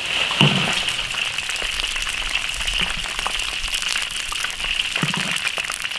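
Silkworm pupae frying in hot oil in an iron wok: a steady sizzle with faint small clicks, as they are ladled out into a perforated strainer once crisp.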